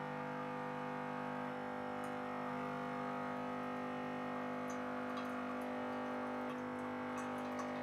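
Saeco Giro Plus espresso machine's water pump buzzing steadily during its start-up rinse cycle, flushing water through to clean the brewing circuit. The hum shifts slightly in tone a few times, with a few faint ticks near the end.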